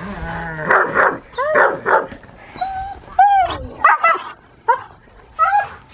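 A puppy barking and whining in a run of about eight short, high-pitched yelps, each rising and falling in pitch.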